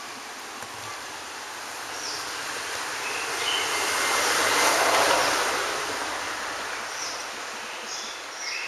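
A vehicle passing nearby: a rush of noise that swells to its loudest about halfway through and then fades away, with a few short high chirps over it.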